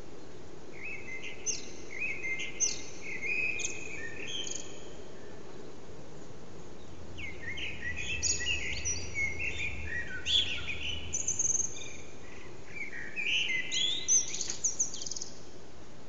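Common blackbird singing its dawn song: three phrases with pauses between, each mixing lower warbled notes with high squeaky twitters, over a steady low background hum.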